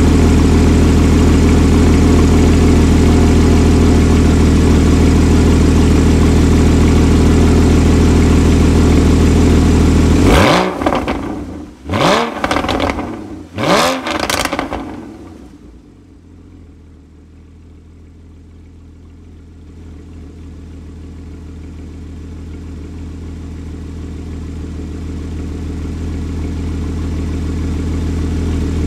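Porsche Cayman S's 3.4-litre flat-six with sports exhaust idling steadily, then blipped three times in quick succession about ten seconds in, each rev falling back. After the revs the idle is much quieter and grows gradually louder toward the end.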